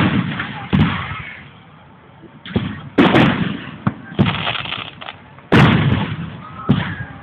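Aerial fireworks bursting overhead: about seven loud booms at uneven intervals, each followed by a rumbling echo that dies away.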